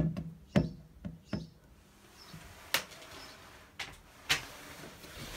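An irregular series of about seven hollow knocks and thumps against the body of a coin-operated kiddie train ride, the loudest right at the start and another about half a second in.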